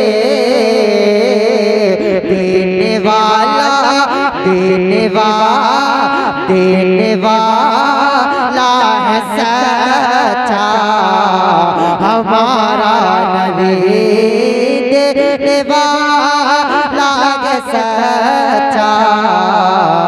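A man's voice singing a naat into a microphone, drawing out long, ornamented notes with heavy vibrato that glide up and down in pitch, without clear words.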